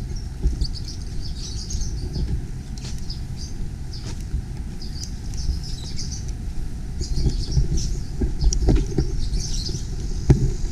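Birds chirping in short bursts, again and again, over a low rumble, with a few sharp knocks near the end.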